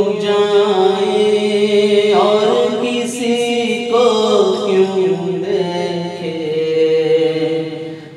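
A man singing an Urdu naat, a devotional poem in praise of the Prophet, in long drawn-out melodic lines. A phrase fades away near the end.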